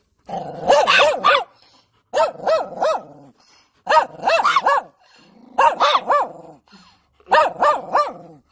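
A small dog barking in quick runs of three or four high yaps, five runs with short pauses between them.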